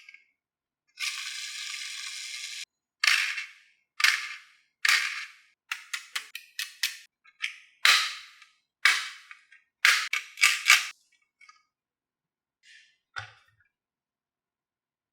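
Marbles on a wooden HABA marble run: a marble rolls along a track section for about a second and a half, then a string of sharp clacks follows as marbles drop onto and knock against the wooden pieces. The clacks come irregularly, some singly and some in quick clusters, with short silences between.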